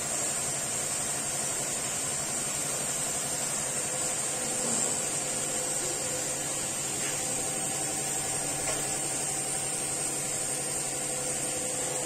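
Arashi AR-228 mini ceiling fan running steadily at speed: a constant whir of air off the blades with a steady motor hum.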